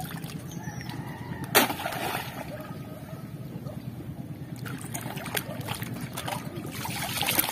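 Hands working in shallow seawater among clumps of oysters: one sharp splash about one and a half seconds in, then softer sloshing with small knocks near the end.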